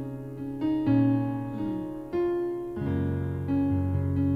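Worship keyboard with a piano or electric-piano sound playing sustained chords, a new chord struck every second or so over a held low bass.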